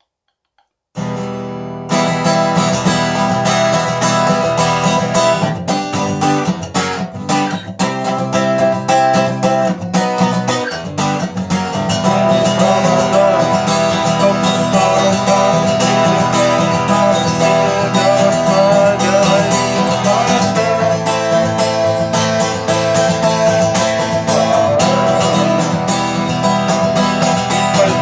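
Music with guitar, starting about a second in after near silence.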